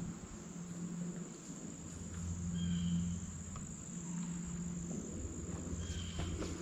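Insects trilling: a steady, high-pitched continuous tone, with a short chirp at a lower pitch twice.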